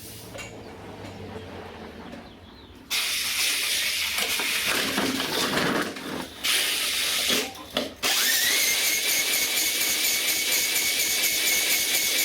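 A small gasoline engine being started with an electric drill: a loud, hissing mechanical noise cuts in suddenly about three seconds in, breaks off twice, then runs on steadily from about eight seconds with a high whine that rises and then holds.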